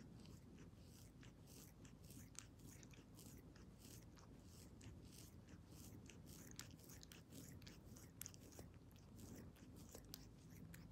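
A cat licking its paw to wash its face: faint, irregular wet licking clicks, several a second.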